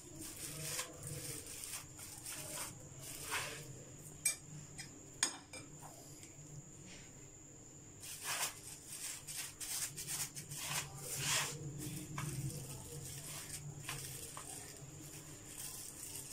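Steel spoon pressing and scraping chicken mince into a metal ring mould lined with plastic wrap: soft scrapes and plastic rustles, with two light metal clinks about four and five seconds in.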